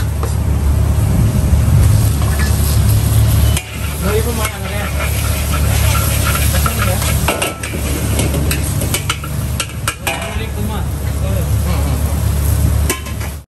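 Mee goreng mamak noodles sizzling in a large wok while a metal spatula stirs and tosses them, scraping and clinking against the pan, over a steady low rumble.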